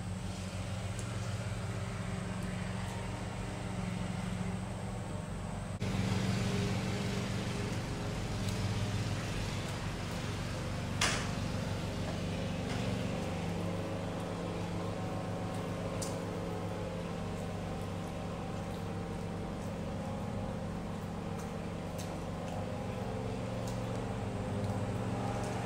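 Steady low mechanical hum, a little louder from about six seconds in, with a few faint clicks, one clearer about eleven seconds in.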